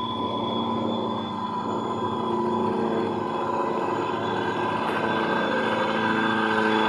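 A Tamiya Aeromax radio-controlled truck pulling a road train of trailers over gravel: a steady running whine from its drivetrain, growing a little louder toward the end.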